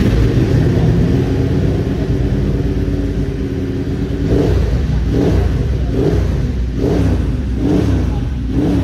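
Racing motorcycle engine running steadily at idle, with short blips of the throttle about once a second in the second half.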